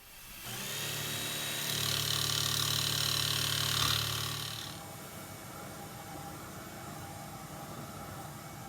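Milwaukee M18 cordless barrel-handle jigsaw starting up and cutting through birch plywood from a pilot hole, the blade stroking steadily. About five seconds in the sound drops to a quieter steady running noise.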